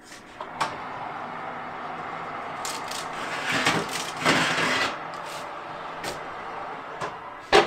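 The door of a fan oven is opened and its convection fan whirs steadily. A metal baking tray scrapes out along the oven rails, loudest a few seconds in. A sharp metallic knock comes near the end.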